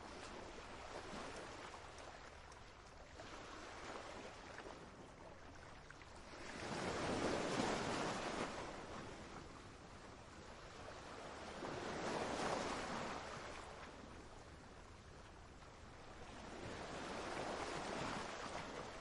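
Faint waves washing in, the noise swelling and fading three times about five seconds apart.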